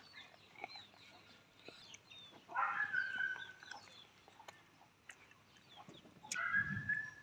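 Chickens clucking, with short high chirps throughout and two louder calls about two and a half and six and a half seconds in.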